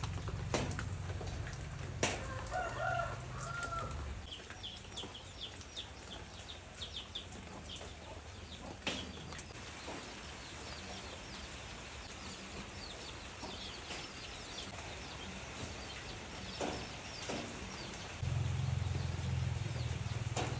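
Light rain falling with scattered drips, while chickens call and cluck: one longer call about two seconds in, then quick high chirps through the middle. A low rumble sits under the start and comes back near the end.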